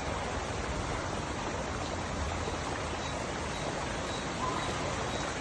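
Steady, even rushing noise, like running water, with a faint short tone about four and a half seconds in.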